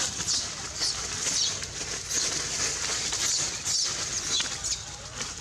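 Macaques screaming in a scuffle: short, high-pitched falling squeals about once a second, over dry leaves rustling.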